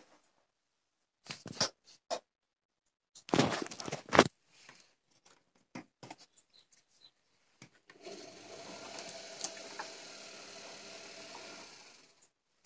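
Gorenje WA 50050 washing machine's drum motor running steadily for about four seconds with a held hum, then stopping: one turn of the drum during the wash. Before it, scattered knocks and clicks, the loudest a cluster a few seconds in.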